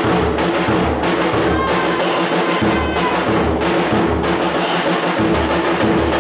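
Music with a steady, heavy low drum beat under a held note.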